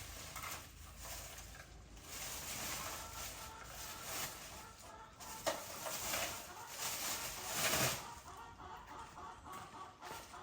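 Chickens clucking amid repeated bursts of rustling noise.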